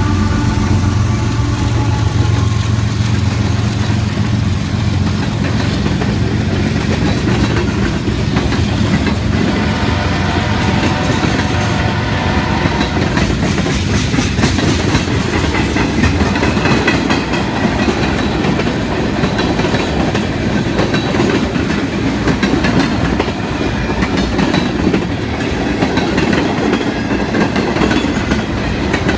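Freight train passing close by. The departing GE diesel locomotives run in the first few seconds, then fade. A long string of tank cars follows, wheels clattering steadily along the rails.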